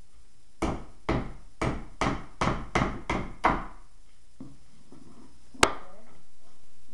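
A skateboard truck and wheel used as a makeshift hammer, knocking on the skateboard deck about ten times in quick, uneven succession. A single sharp click follows a couple of seconds later.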